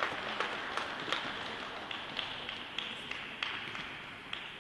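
Audience applause thinning out to scattered single claps, fading away.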